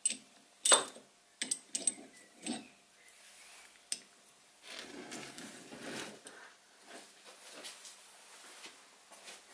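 Small steel parts of a mini-lathe compound slide being handled and fitted together on a workbench: a few sharp metallic clicks and taps in the first few seconds, the loudest about a second in, then a stretch of softer scraping and handling noise.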